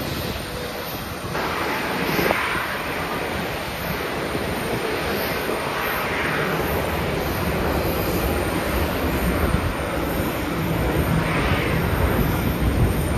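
Steady rush and low rumble of jet aircraft engines, the hiss swelling briefly a few times.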